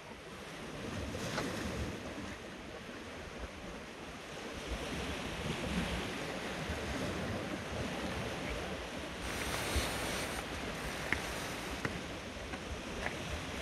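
Sea swell washing and breaking against shoreline boulders, with wind buffeting the microphone; a louder hiss of water comes about two-thirds of the way through.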